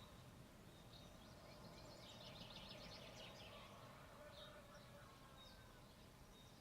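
Faint birdsong: scattered high chirps, with a rapid trill of quickly repeated notes about two seconds in, over a low background rumble.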